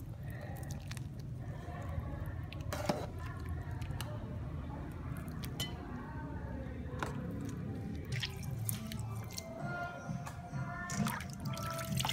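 Faint background music over a low steady hum, with a few light clinks of a metal spoon against a ceramic soup bowl and soft sloshing of broth.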